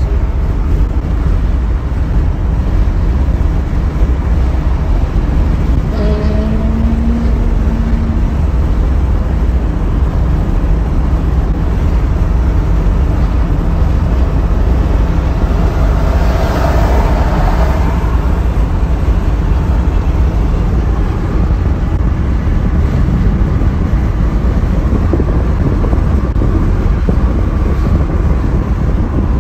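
Steady road noise inside a car cruising at freeway speed, a heavy low rumble of tyres and engine with a hiss over it. A short pitched tone comes about six seconds in, and a louder rush swells and fades about sixteen seconds in.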